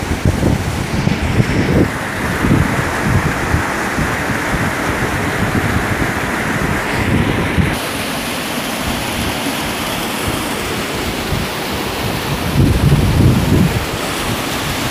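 Small waterfall cascading over rock in a narrow gorge, a steady loud rush of water. Wind buffets the microphone in low rumbling gusts in the first two seconds and again about twelve seconds in.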